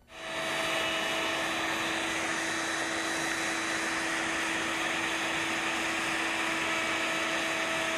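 Table-mounted router spinning a bearing-guided bevel bit, running steadily with a high whine over a rushing noise as the oak stretcher edges are beveled.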